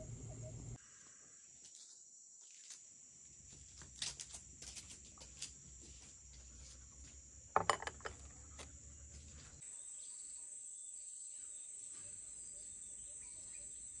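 Steady high-pitched chorus of insects in rural vegetation, faint, with a few sharp clicks scattered through; the loudest cluster comes about eight seconds in.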